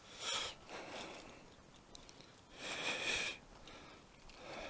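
A person breathing close to the microphone: a short breath near the start, a longer, louder one about two and a half seconds in, and a fainter one near the end.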